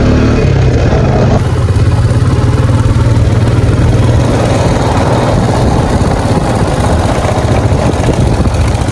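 ATV (quad bike) engine running steadily as it rides along a dirt road, a low constant hum with road noise.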